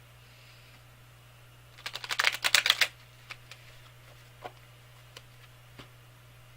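Deck of tarot cards being shuffled: a quick run of rapid card clicks lasting about a second, starting about two seconds in, then a few scattered single taps as the cards are handled.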